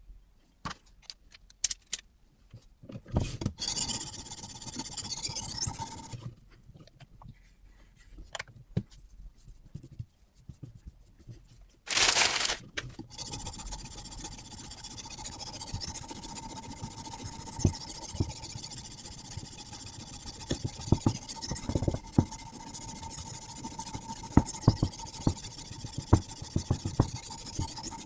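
Whetstone of a guided knife-sharpening system scraping along a carbon-steel knife blade. Scattered clicks, knocks and short scrapes in the first half give way, about halfway through, to steady scraping with many small clicks.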